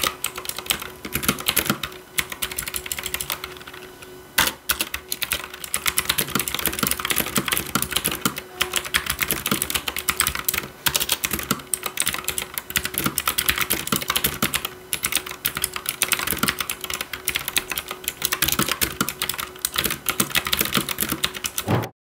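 Typing on the AULA F2088 (Fireshock V5) mechanical keyboard with clicky KRGD blue switches: a dense, quite loud clickety-clackety run of keystrokes. It pauses briefly about four and ten seconds in and stops abruptly near the end.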